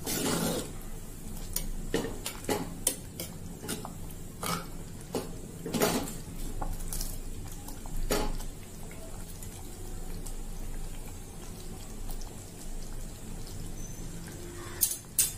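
A metal spoon stirs thick ven pongal in a clay pot, scraping and knocking against the pot's sides over the first eight seconds or so. Then it goes quieter, with a low steady hum, and a couple of sharp knocks come near the end.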